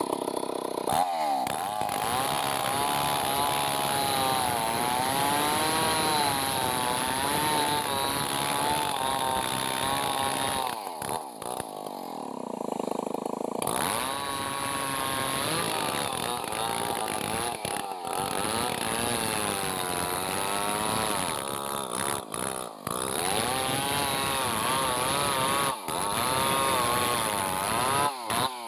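Gasoline chainsaw running at high revs and cutting into a log end, its pitch rising and falling as the cut loads it. Around the middle it drops toward idle for a couple of seconds before revving up again, and the sound breaks off abruptly for an instant a few times.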